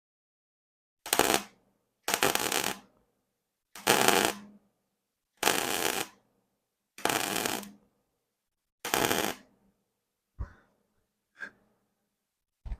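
MIG welder arc crackling on the steel frame in six short bursts, stitch-welding a crack one short run at a time, followed by a few faint clicks.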